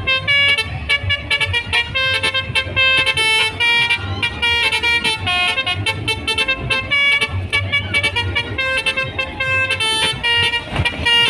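Telolet horn on a kora-kora swinging-ship ride playing a quick tune of short horn notes that step up and down in pitch, over a steady low rumble.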